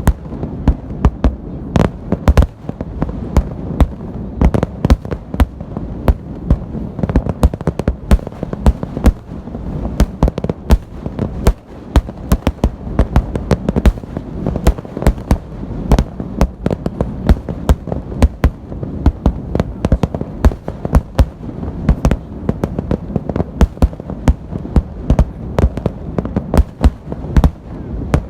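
Festive fireworks salute: shells bursting in quick, dense succession, many bangs a second over a continuous low rumble.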